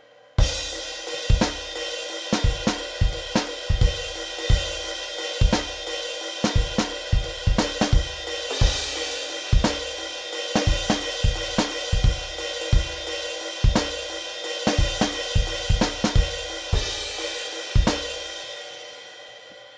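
A soloed drum-kit track playing back through channel effects switched on: steady kick drum, snare and hi-hat under a wash of cymbals. It stops shortly before the end and the cymbals ring out.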